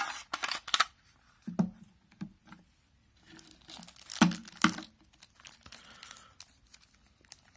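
Hands handling a small aluminium hard drive enclosure and its parts: a quick run of clicks in the first second, scattered knocks with two louder ones about four seconds in, and soft rustling after.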